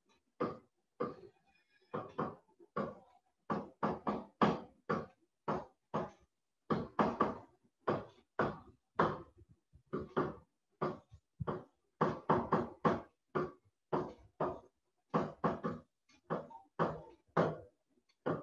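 Stylus knocking and tapping on a pen tablet as handwriting goes on: a long run of short knocks, about two to three a second.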